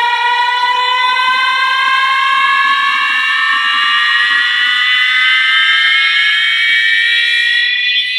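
A loud synthesizer tone with several overtones, rising slowly and smoothly in pitch like a siren, played through a mini JBL Boombox Bluetooth speaker: the build-up sweep of a DJ sound-check track.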